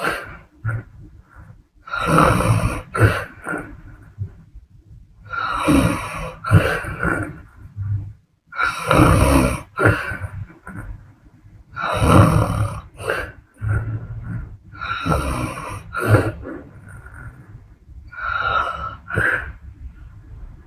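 A woman snoring in a steady rhythm: six snores about three seconds apart, with quieter breathing between them.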